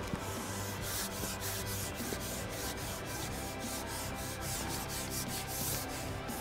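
Carbon fishing pole being shipped back while a hooked fish is played: a run of repeated rubbing swishes, several a second, as the pole slides back through the angler's hands and over its rest.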